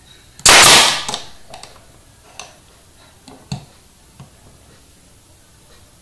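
Brad nailer firing once, a sharp shot about half a second in, driving a brad into a glued wooden joint to tack it together. A few faint clicks and knocks follow.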